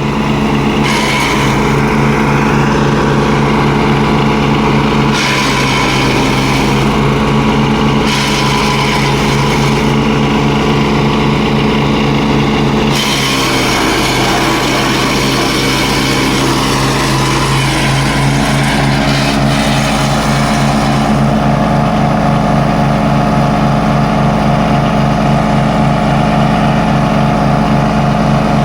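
Wood chipper's engine running steadily and loudly, with stretches of extra high hiss and crackle that start and stop abruptly.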